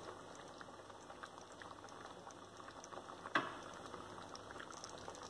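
Thick peanut, sesame and coconut curry gravy bubbling gently in the pan with faint soft pops, and one sharper knock about three and a half seconds in.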